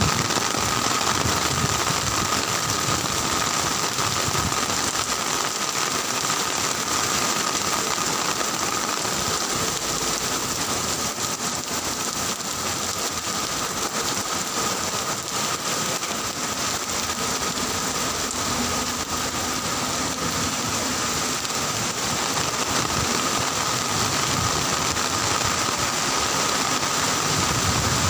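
Heavy rain pouring steadily, an even hiss of rain on the street and surfaces.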